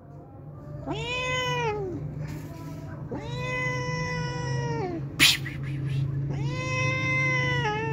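A white-and-tabby stray domestic cat meowing three times, each call a long drawn-out meow of one to two seconds that bends down in pitch at its end. A single sharp click sounds between the second and third meows.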